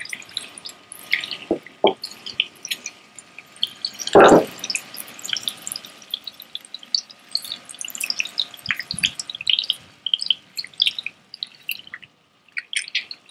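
Mangrove snapper strips searing in hot oil in a frying pan: a steady crackle of small spattering pops. A single heavy knock comes about four seconds in, with lighter knocks near the start and around nine seconds.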